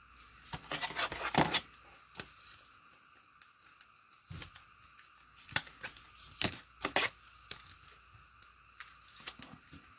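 Trading cards and foil pack wrappers being handled: scattered light rustles, crinkles and clicks as cards are slid and flipped and wrappers are worked open.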